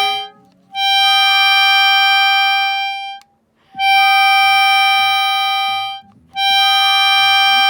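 English concertina sounding the same reed note repeatedly: a note dies away just after the start, then three long held notes follow, separated by short gaps. The notes are played to show an unwanted noise the concertina makes.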